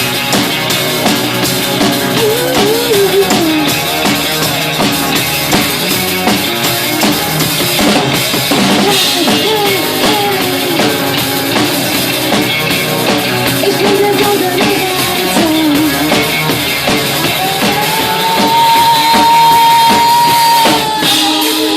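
Rock band music with a full drum kit playing under a wavering lead melody. The melody holds one long high note near the end.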